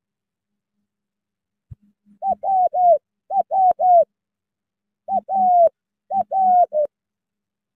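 Spotted dove cooing: four short phrases of two or three notes each, beginning about two seconds in, each note dropping in pitch at its end.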